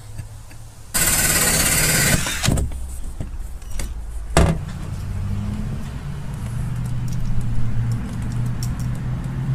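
Cordless drill running for about a second, then a sharp knock, followed by a steady low hum for the rest of the time.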